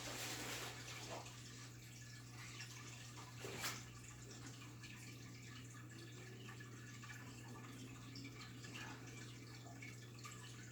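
Faint water sounds in a goldfish tank: small drips and splashes over a steady low hum, with one louder splash about three and a half seconds in.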